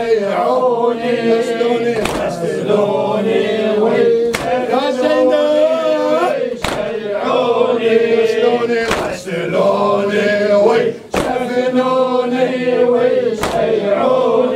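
A group of men chanting a latmiyya lament in unison, with a sharp, unison beat of hands striking chests about every two seconds: latm keeping time with the chant.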